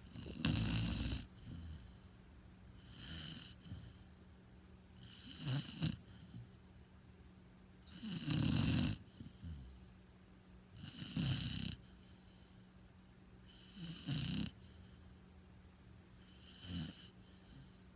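A pit bull snoring in its sleep, one snore roughly every three seconds, about seven in all.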